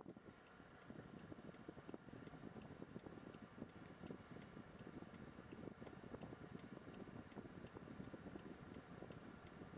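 Faint, regular ticking over a low, crackly rumbling noise.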